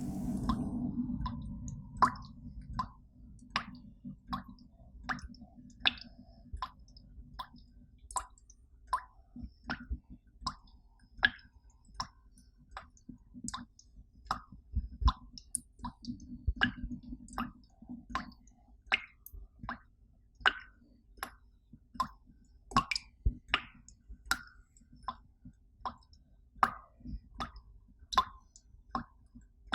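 Water drops dripping, each landing as a short, pitched plop, a little more than one drop a second at a slightly uneven pace. A low hum in the first couple of seconds fades out.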